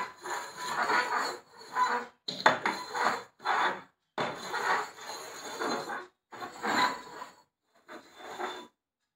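Upturned steel tumblers being shuffled on a wooden tabletop, sliding and scraping across the wood in a series of short strokes.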